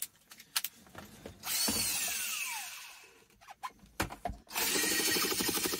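Cordless drill: a short run that winds down with a falling whine, a few handling clicks, then the drill running steadily with a fast rhythmic rattle as it bores into the hard plastic of the console.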